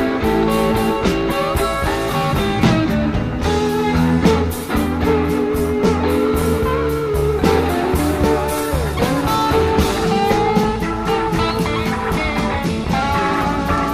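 Blues-rock music led by guitar, with no singing.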